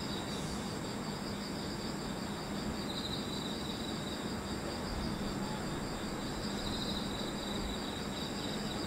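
Insects chirping in a steady, pulsing high trill, over a low, steady electrical hum from the stationary electric trains standing at the platform.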